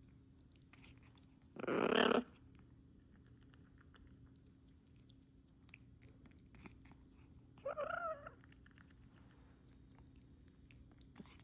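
Pet parrot eating and sipping a smoothie: scattered small beak and tongue clicks. About two seconds in there is a short louder rush of noise, and around eight seconds a brief wavering, voice-like warble.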